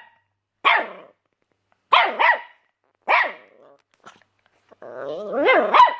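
Puppy barking in short yaps: one about a second in, a quick pair near two seconds, another a little after three. From about five seconds a growl rises into a run of barks.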